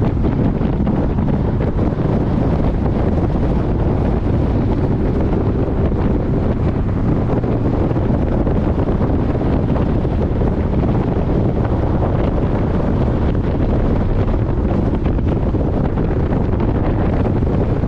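Heavy, steady wind buffeting on the microphone of a Porsche 718 Boxster GTS lapping a race track at speed, with the car's running noise beneath it.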